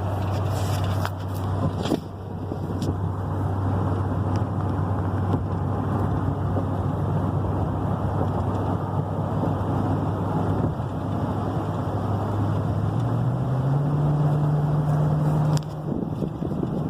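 Car driving at highway speed, heard from inside the cabin: steady road and tyre noise with a low engine drone that steps up in pitch near the end. A few light clicks in the first couple of seconds.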